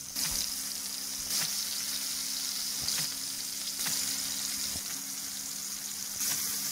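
Minced mutton kebabs sizzling steadily as they shallow-fry in hot oil in a pan, with a few brief crackles as more pieces go in.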